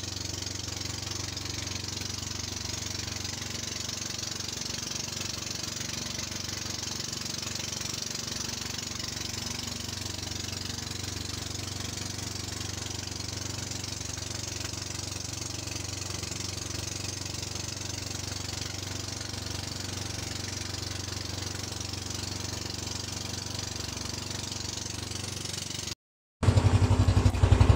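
Outrigger fishing boat's engine running steadily under way, with a hiss of wind and water over it. Near the end the sound drops out briefly and returns louder, the engine's rapid firing beat heard close.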